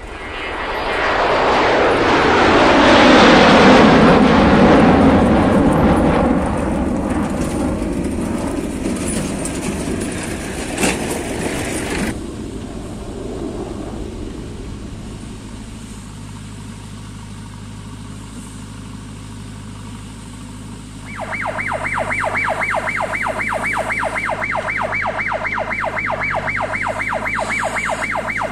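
Diesel machinery running: a tractor's engine swells loud as it comes down a dirt track, then a JCB 3DX backhoe loader's engine runs more quietly while digging. About three-quarters of the way through, a fast, steady siren-like electronic warble starts, about four or five pulses a second, and continues on top of the engine.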